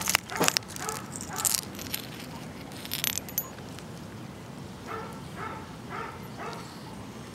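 Small dog being petted up close: rustling and light jingling from its collar tag over the first few seconds, then four short pants about half a second apart.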